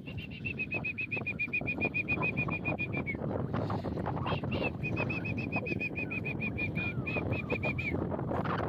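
A bird calling a rapid run of short, high, identical notes, about six or seven a second. The run breaks off about three seconds in and starts again a second and a half later. Steady low background noise sits underneath.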